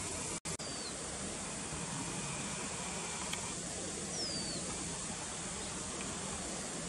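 Steady outdoor hiss with two short falling whistled bird notes, one about half a second in and one past the middle. The background briefly cuts out just before the first note.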